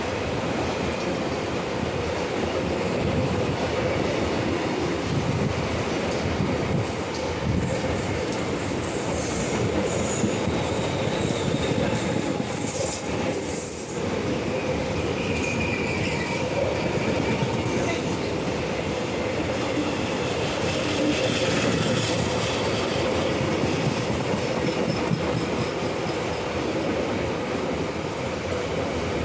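Indian Railways electric-hauled express train rolling past, a continuous rumble of wheels on the track with clickety-clack over the rail joints. Brief high-pitched wheel squeal about halfway through.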